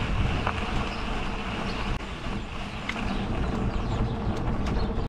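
Bicycle riding along a dirt track: a steady rush of wind and tyre noise with scattered small clicks and rattles.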